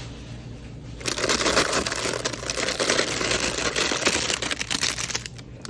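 Prawns sizzling and crackling on a hot grill: a dense crackle that starts about a second in and fades just before the end.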